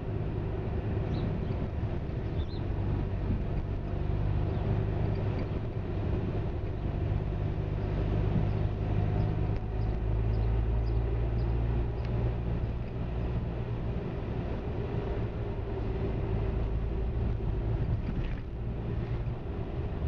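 Motor vehicle engine running steadily: a continuous low drone.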